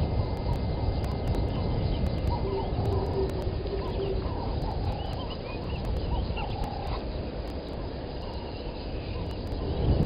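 Wild birds calling in short chirps from about two seconds in until about seven seconds in, over a steady low rumble.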